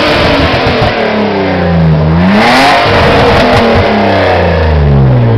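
BMW E36 3 Series engine being revved in neutral when warm: the revs fall away, climb sharply to a peak about two and a half seconds in, then wind down slowly toward idle. The hot engine is being revved hard to clear out carbon.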